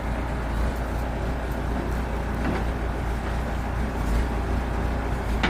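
Backhoe engine running steadily with a low rumble.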